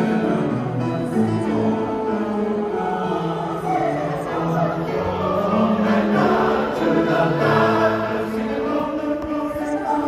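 Large church choir singing held notes together with instrumental accompaniment.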